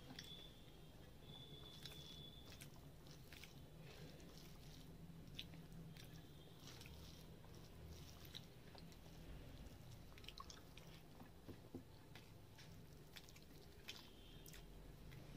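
Faint wet squelches and small sticky clicks of a hand mixing and squeezing cooked rice with fish gravy on a steel plate, scattered irregularly over a steady low hum.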